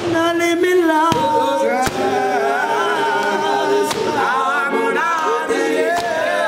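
Male a cappella group singing together in harmony, with no instruments, and a few sharp hand claps.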